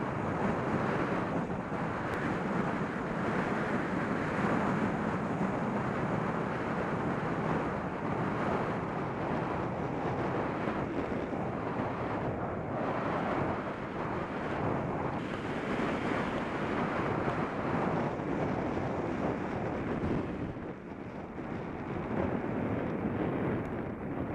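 Steady rush of wind buffeting the camera microphone on a fast bicycle descent. It eases briefly near the end, then picks up again.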